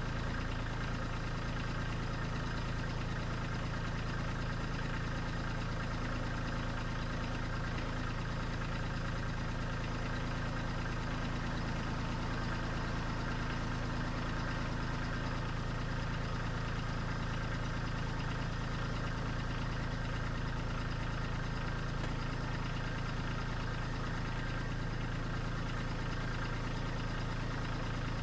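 Kubota diesel engine idling steadily, with no change in speed.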